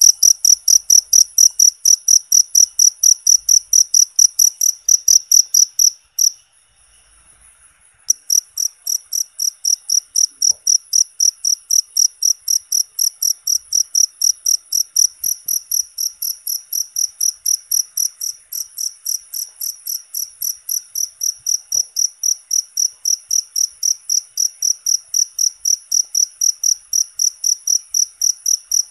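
A cricket chirping loudly in a fast, even train of high-pitched pulses, about four a second. The chirping stops for about two seconds some six seconds in, then starts again.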